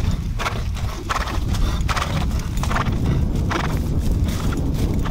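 Horse's hooves clopping on a dirt track as it walks in a high-stepping gait, about two strikes a second over a steady low rumble.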